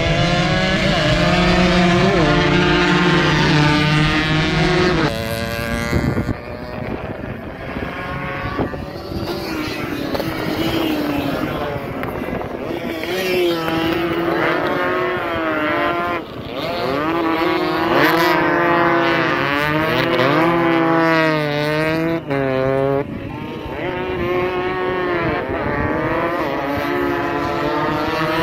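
Several two-stroke 140cc racing motorcycles running hard around the circuit. Their buzzing engine notes rise and fall over and over as the riders rev through the gears, brake for corners and pass close by.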